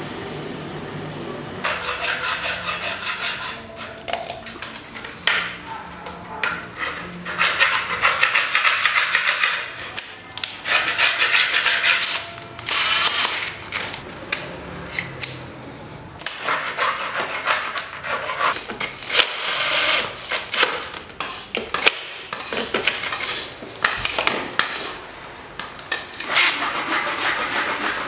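A butane blow torch flame hisses steadily for the first second or so. After that come repeated irregular rubbing and scraping strokes of hand work on the wooden and PVC parts.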